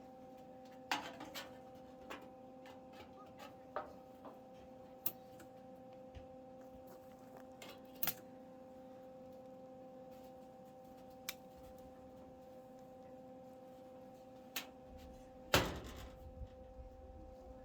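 Scattered knocks and clanks of tools and metal parts being handled during car body work, about ten in all, the loudest about three-quarters of the way through with a brief low rumble after it, over a steady hum.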